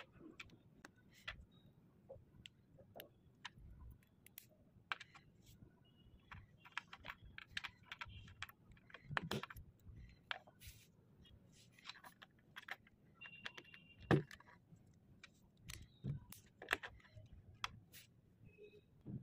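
Small plastic Lego Technic parts clicking and knocking together as they are handled and fitted by hand: scattered sharp clicks at an irregular pace, the loudest about 14 seconds in.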